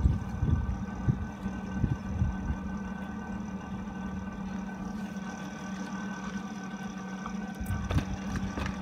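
A steady machine hum, with a few dull knocks and handling noises in the first three seconds and light clicks near the end.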